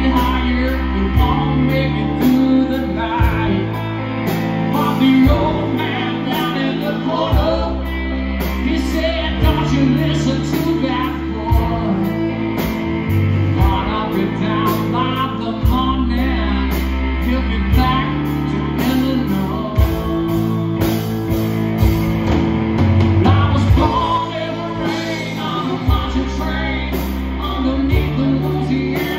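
Live country-rock band playing: electric guitars, bass guitar and drum kit with a steady beat, under a male lead vocal.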